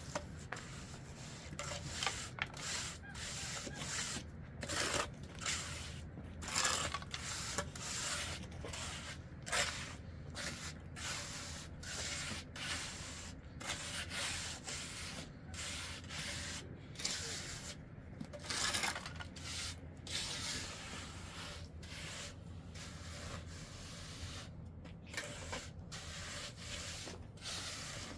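Repeated rough scraping or rubbing strokes, coming irregularly a few times a second over a low steady hum.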